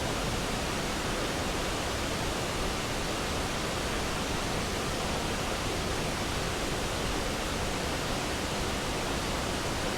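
Waterfall: the Klang River pouring over the falls, a steady, unbroken rush of falling water.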